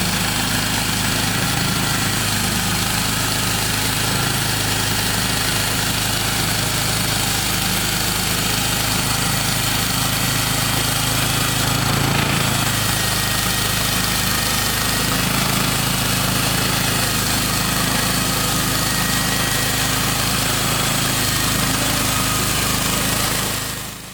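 Sawmill engine running steadily, with a constant low hum under even mechanical noise; it fades out at the very end.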